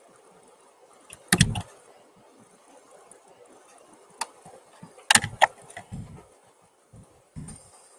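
A handful of sharp clicks and knocks, some in quick clusters; the loudest come about a second and a half in and again about five seconds in.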